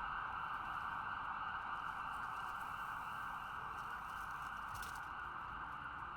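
A steady, narrow, mid-pitched hiss with no tone or siren sweep in it, slowly fading.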